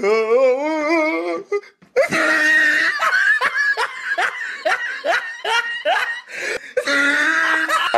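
Hearty laughter, a long run of short 'ha' bursts, each falling in pitch, after a wavering drawn-out vocal sound in the first second and a half.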